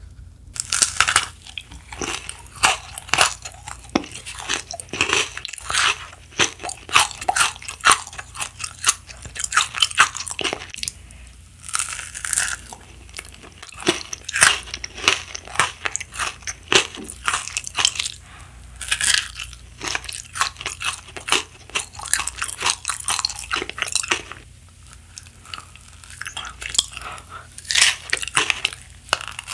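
Crunching and chewing of a strawberry-flavoured edible candy hairbrush with a crisp topping on its bristles, bitten off and chewed in irregular runs of sharp crunches with brief pauses.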